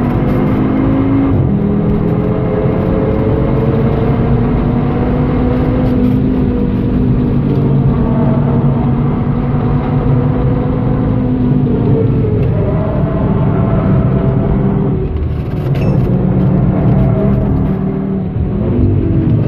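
2013 Audi TT-RS's turbocharged 2.5-litre five-cylinder engine pulling hard at high revs, heard from inside the cabin. It shifts up from third to fourth about a second in, then climbs through the revs. Near the end it lifts off and blips during a downshift back to third.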